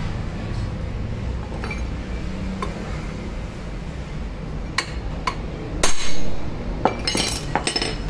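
A steel hammer taps the end of a Hero Pleasure scooter's crankshaft several times to straighten a slight bend: a quick series of sharp metallic clinks over about three seconds, starting around five seconds in, with the loudest strike near the middle of the series.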